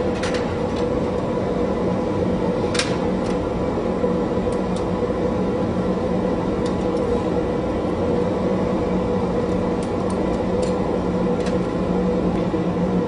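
Steady mechanical hum of glassblowing workshop equipment, with a low drone, and a few light clicks of metal tools against the hot glass, the clearest about three seconds in.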